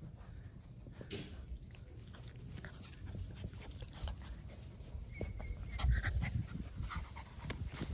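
Puppies playing together: scuffling and small dog noises, getting louder in the second half.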